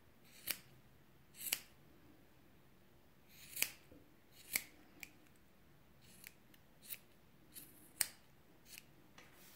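Scissors snipping through 3 mm cotton macrame cord, trimming the long ends of a yarn pompom: about ten short, sharp snips at an uneven pace.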